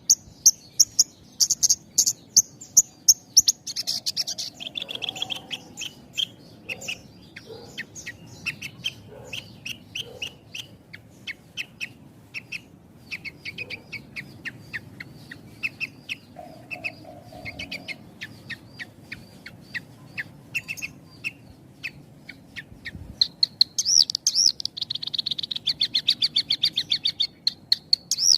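Javan bush lark (branjangan) singing: an unbroken string of short, rapidly repeated chirping notes, very high at the start and then lower. A dense, fast trill comes near the end.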